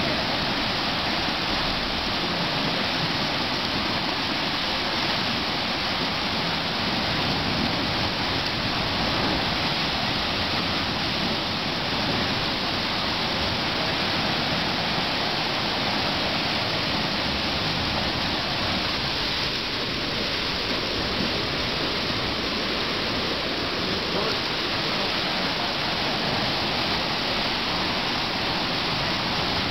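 Ocean swell surging through an underwater cave into a landlocked rock pool, the seawater churning into white water in a steady rush of noise.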